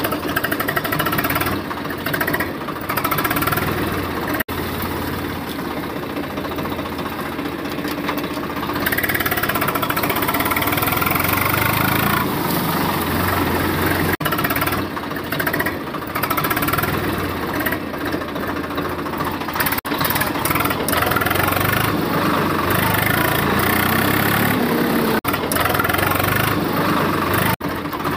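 Tractor engine running steadily with a knocking beat, rising in pitch a few times. The sound is broken by several brief, abrupt cuts.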